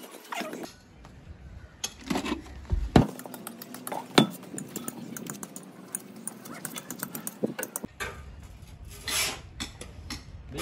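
Clinks and knocks of freshly cast iron truck brake drums being handled and set down, with a cloth rubbing on the castings; two sharp knocks stand out about three and four seconds in.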